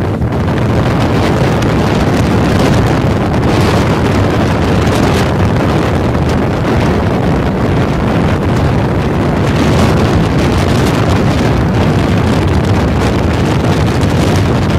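Strong wind buffeting the phone's microphone with a loud, steady low rumble, over the wash of breaking surf.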